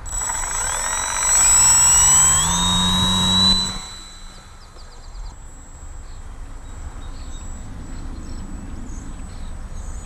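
Electric motor and propeller of a small E-flite P-40 Warhawk RC plane whining loudly in a close flyby, the pitch rising, then cutting off suddenly about three and a half seconds in. After that only a faint whine and a low rumble of wind remain.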